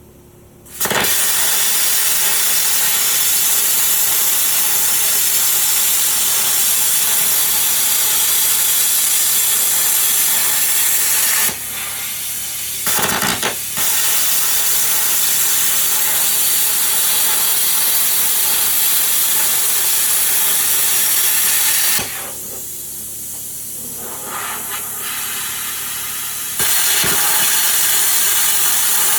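Plasma cutter cutting 1/8-inch steel plate: a loud, steady hiss that starts about a second in, twice falls to a quieter hiss for a few seconds, then comes back at full strength.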